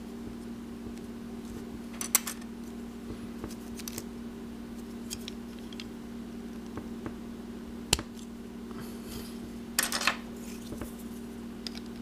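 Hard plastic toy weapon accessories clicking and rattling as they are handled and pegged together into one large weapon, with sharp clicks about two seconds in, near eight seconds, and a quick cluster near ten seconds. A steady low hum runs underneath.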